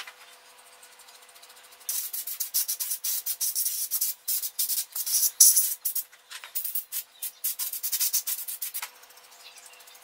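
Brush scrubbing a graphics card's circuit board clean of dust and old thermal paste: a fast run of scratchy strokes starting about two seconds in and stopping shortly before the end.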